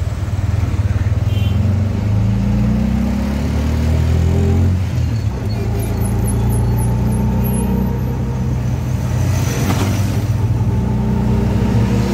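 Auto-rickshaw (tuk-tuk) engine running under way, heard on board; its pitch rises about two seconds in as it accelerates, then holds steady.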